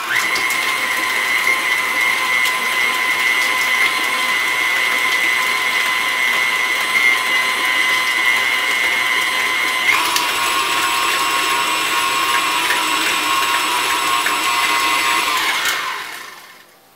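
Tilt-head stand mixer running steadily with a motor whine, beating cream cheese and condensed cream of mushroom soup together. Its pitch steps down a little about ten seconds in, and it winds down and stops about a second before the end.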